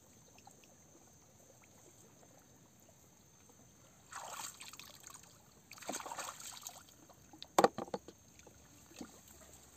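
Shallow pond water sloshing and splashing as someone wades and gropes by hand in the mud for apple snails, in two spells about four and six seconds in. A few sharp clacks, the loudest sound, follow a little before the end.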